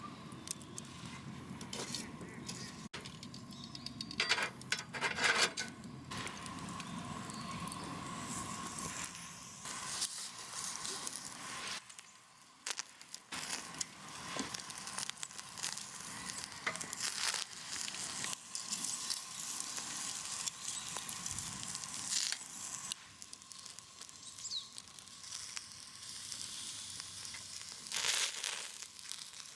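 Food sizzling as it fries, with a steady hiss broken by small clicks and crinkling rustles of handling.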